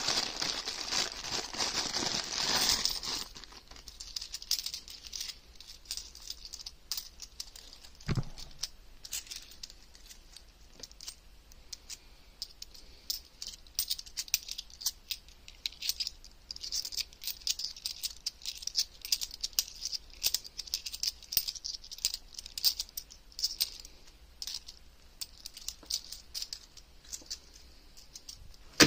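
Thin plastic coin bag crinkling for the first few seconds, then 50p coins clicking and clinking against each other in small irregular runs as a stack is leafed through by hand. One dull knock about eight seconds in.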